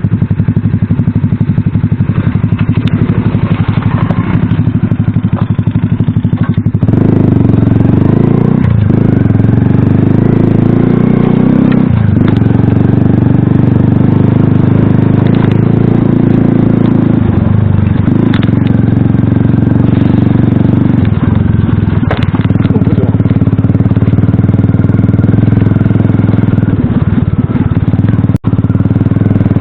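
Small Alpha motorcycle's single-cylinder four-stroke engine running loud while riding, getting louder about seven seconds in as it speeds up, then dipping briefly several times as the throttle is eased or gears change.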